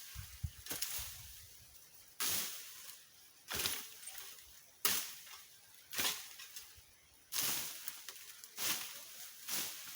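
Repeated strikes of a hand tool chopping and clearing dry brush and ground, a sharp hit with a short scraping tail about once every second and a half.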